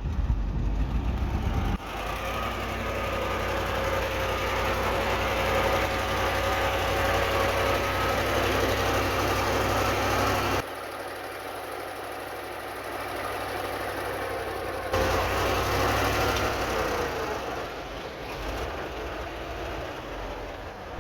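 Heavy diesel earthmoving machinery running under load, a deep engine rumble with a higher whine over it; the sound changes abruptly three times.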